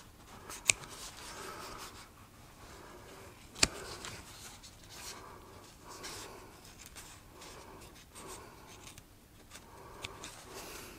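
Scissors cutting out a marked piece of sheet material, with a soft, repeated rasp of cutting strokes and two sharp clicks of the blades, one under a second in and one about three and a half seconds in.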